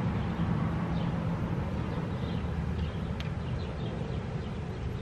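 Outdoor ambience: a steady low rumble with faint bird chirps, and a single sharp click about three seconds in.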